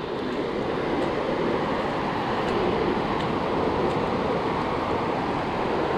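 Steady rushing noise of ocean surf washing in at the water's edge, with some wind on the microphone.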